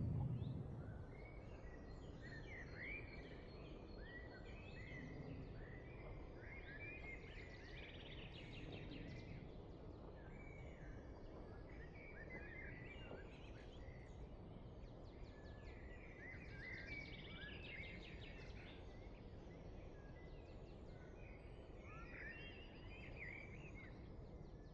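Faint outdoor ambience of small birds chirping in scattered clusters over a steady low background rumble.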